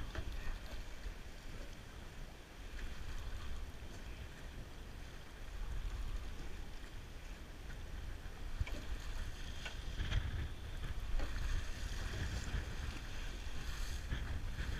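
Wind buffeting the microphone on an open boat at sea, with choppy water slapping against the hull. There are a few light ticks about two-thirds of the way through and again near the end.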